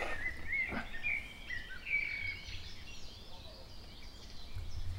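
Small songbirds chirping in short whistled notes over a low rumble.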